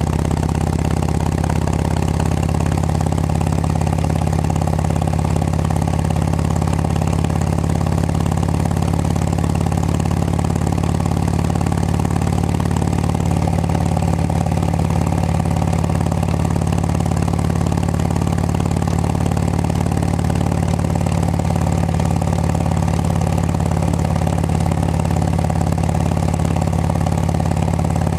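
2006 Harley-Davidson Road King Classic's Twin Cam 88 V-twin running steadily at cruising speed through aftermarket Cycle Shack exhaust pipes, heard from the rider's helmet.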